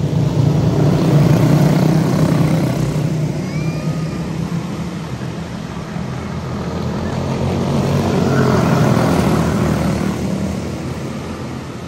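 Quarter midget race cars' Briggs & Stratton Animal single-cylinder engines running, a steady engine drone that swells louder twice, about a second in and again around eight seconds.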